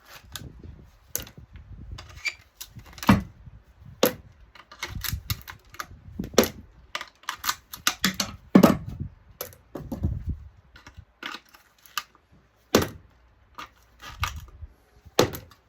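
Irregular clicks, taps and clanks of hand tools and metal parts being handled while an electronic lamp ballast is dismantled for scrap. A few heavier knocks ring briefly.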